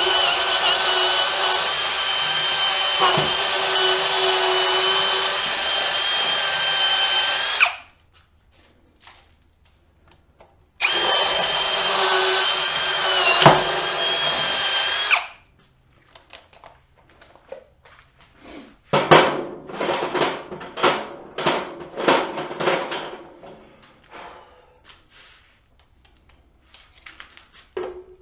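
Ridgid cordless drill with a large bit boring into a wooden post at steady full speed for about eight seconds. It stops, then bores again for about four and a half seconds with a sharp knock near the end. Afterwards there is a scattered run of light knocks and rattles.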